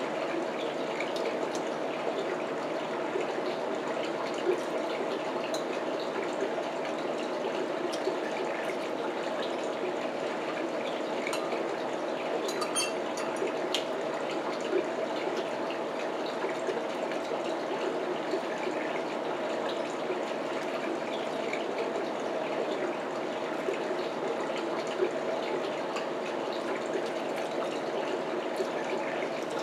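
Steady rushing background noise, with scattered small clicks and clinks of a metal fork against glass dishes during eating.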